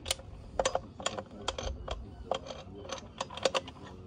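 Irregular metallic clicks and clinks from hand work on a Suzuki RM85 engine: tools and parts knocking against the engine as it is worked on.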